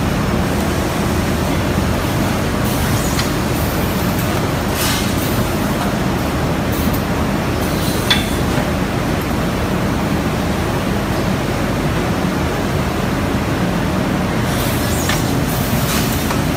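Automatic rotary tray sealing machine running with a steady mechanical noise, with short hisses of compressed air from its pneumatics several times as it cycles.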